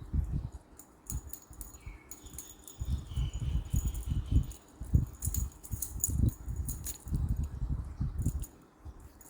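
Irregular bouts of soft thumping and rustling, with jingling, rattling clicks over them.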